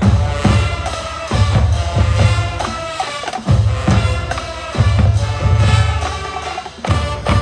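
Marching band playing: brass holding pitched chords over pulsing low brass and bass drum hits, with brief drops in the low end a few seconds in and near the end.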